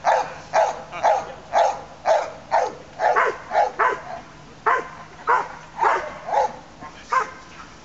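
Police dog barking repeatedly at a decoy in a bite suit, about two sharp barks a second, with a short pause about halfway through.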